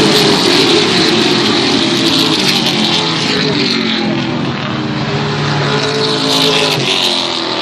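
Racing pickup trucks' engines running at speed around an oval track, several engines sounding at once and shifting in pitch as the pack goes by; the sound swells briefly about six seconds in.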